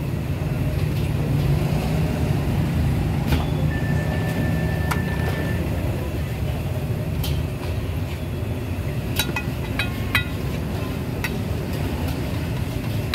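Street ambience: a steady low rumble of traffic, with scattered sharp clicks and clinks and a short, high, steady tone about four seconds in.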